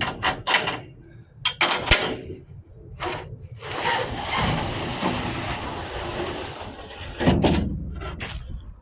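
Compartment hardware on a fire rescue truck body being handled: several clicks and knocks, then a slide-out tray or compartment fitting runs out with a rough sliding rumble for about three seconds, followed by two more knocks.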